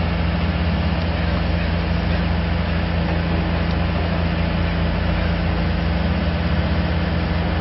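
Diesel engines of heavy compost-yard machinery, a wheel loader and a hopper feeding a conveyor, running with a steady low drone.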